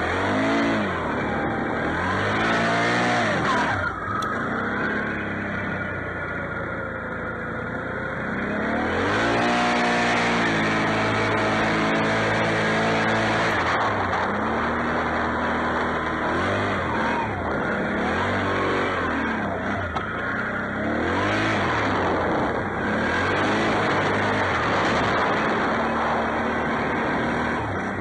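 Can-Am Outlander XMR 650 ATV engine revving up and down again and again under throttle as it is ridden through snow. The revs settle lower for a few seconds, are held high for a stretch, then rise and fall repeatedly.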